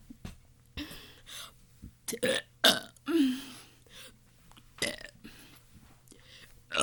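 A person burping repeatedly: several short separate burps, the loudest about a third of the way in, one followed by a low falling tone, and another loud burp starting right at the end.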